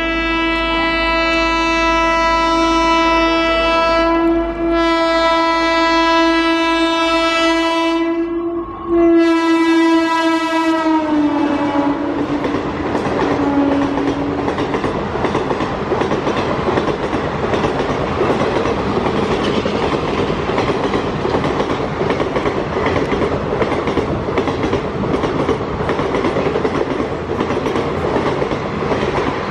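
Indian Railways train horn sounding three long blasts, the last one sliding down in pitch as it fades out about a dozen seconds in. After it comes the steady rumble and clickety-clack of a train's wheels running over the rails.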